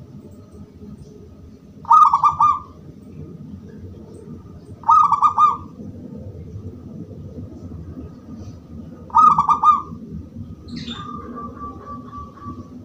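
Zebra dove (perkutut) cooing: three short, bubbling coo phrases a few seconds apart. Near the end comes a brief chirp, then a thin, steady held tone.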